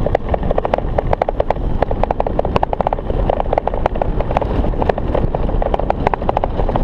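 Wind rushing over the microphone of a chain-drive electric scooter riding downhill at full throttle, with a fast, uneven rattle of sharp clicks from the scooter.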